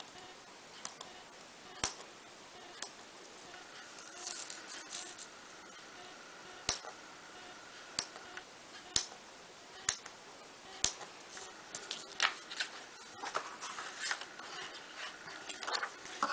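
Small parchment-craft scissors snipping through parchment paper: a series of sharp, irregularly spaced clicks, about a dozen snips, some in quick little clusters of crackle.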